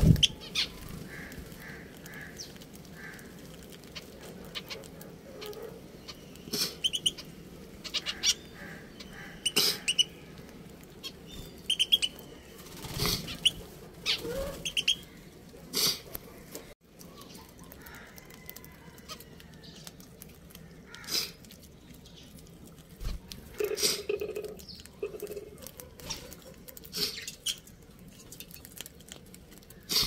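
Budgerigars chirping in short, scattered calls, with sharp clicks in between.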